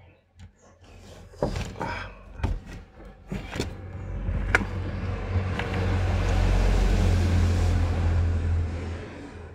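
A few sharp clicks and taps of a tool prying at the push-start button's trim. Then a low engine drone with rushing noise swells from about four seconds in and fades toward the end, like a motor vehicle passing.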